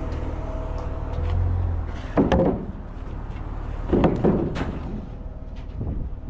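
Doors or storage compartments banging shut while gear is stowed: two bursts of knocks and clatter about two seconds apart, over a low steady rumble.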